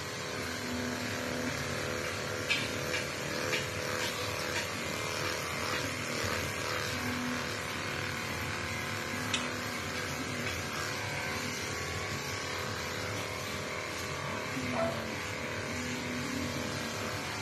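Electric pet-grooming equipment running with a steady whirring hiss and hum, with a few faint clicks over it.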